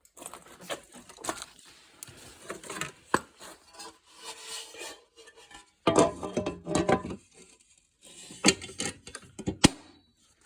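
Objects clattering, knocking and rubbing as scrap is handled and shifted around by hand. There is a dense burst of clatter about six seconds in and a few sharp knocks near the end.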